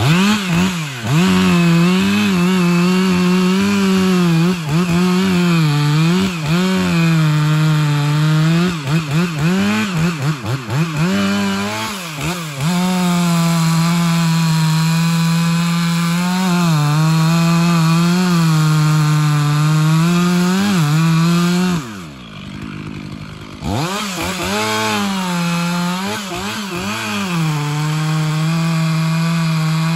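Two-stroke chainsaw cutting into the base of a large standing tree at full throttle. Its pitch dips and recovers repeatedly in the first part as the chain works into the wood, then holds steady. About 22 seconds in, the engine drops back briefly and quietens before revving up again and carrying on cutting.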